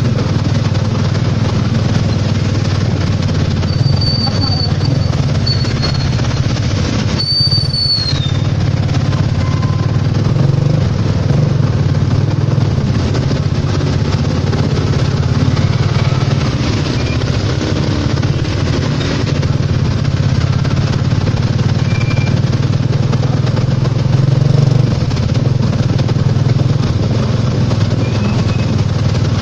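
Motorcycle engine of a motor tricycle running steadily under way, with the hiss of tyres on a wet road. A few brief high squeals come in about four to eight seconds in.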